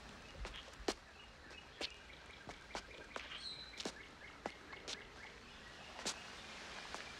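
Slow footsteps on stone steps, about one a second, over faint outdoor ambience with birds chirping.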